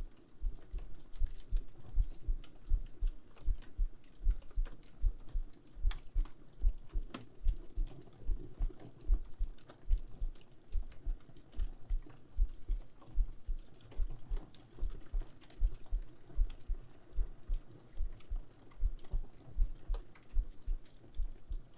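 A steady heartbeat of deep, evenly spaced double thumps (lub-dub), with a fireplace crackling softly behind it in scattered small pops.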